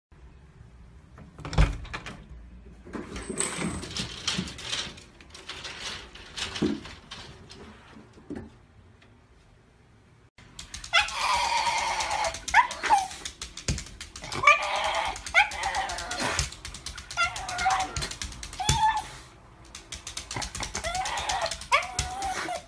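Shiba Inu whining in a run of long, wavering cries that rise and fall in pitch, starting about halfway through. Before that, a sharp knock and some clattering and rattling.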